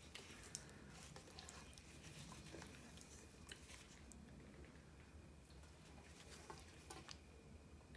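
Faint wet squelching of gloved hands working chicken pieces in a bowl of thick yogurt marinade and lifting them out, with a scatter of light clicks.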